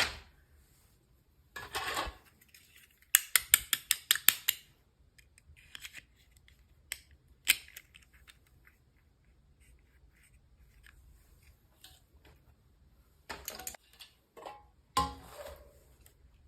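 Small packaging being handled during an unboxing: scattered sharp clicks and crinkles, with a quick run of about a dozen clicks or snips about three seconds in.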